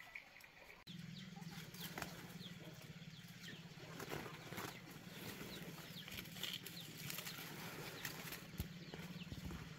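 Leaves and branches rustling, with small twig snaps, as red fruits are picked by hand from a tree. Short bird chirps sound throughout, over a low steady hum that starts about a second in.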